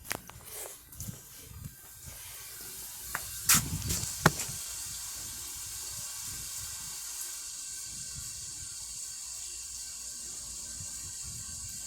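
Water spraying with a steady hiss that sets in about two seconds in. Before it come a few sharp knocks, the loudest near four seconds in.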